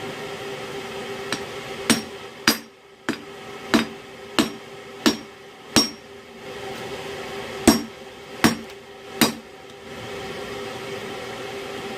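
Hand hammer striking hot steel on an anvil while forging an axe: about ten irregularly spaced blows, each with a short metallic ring, with a pause about two-thirds of the way through. A steady hum runs underneath.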